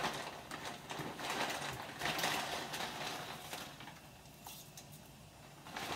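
Plastic packet of dried chow mein noodles crinkling and rustling as a hand rummages in it and pulls noodles out, for about four seconds, then quieter.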